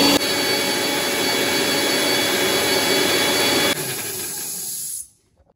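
Electric mixer grinder running at full speed, grinding ginger, garlic and green chilies into a paste. It drops a little in loudness near the end, then runs down and stops about five seconds in.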